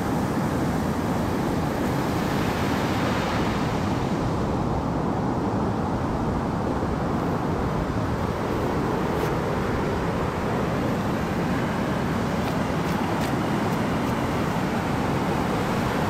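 Steady rush of ocean water and wind noise, with a few faint ticks in the second half.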